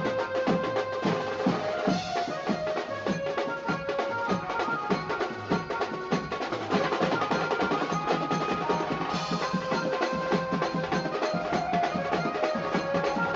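Music with fast, steady drumming under a melody of held notes.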